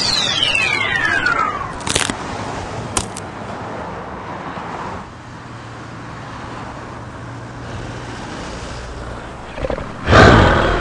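Action-film sound effects: a whistle falling steeply in pitch over the first two seconds, two sharp hits, then a steady rumbling haze with a low hum, ending in a loud burst near the end.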